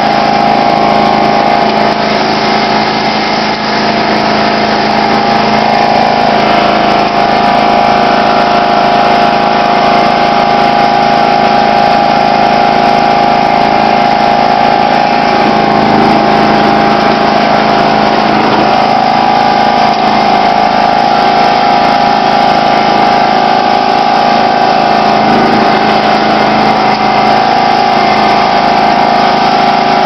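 John Deere LX176 lawn tractor engine running steadily under load, heard from the driver's seat while the tractor plows slush. The engine note holds level, with a few brief dips in the middle.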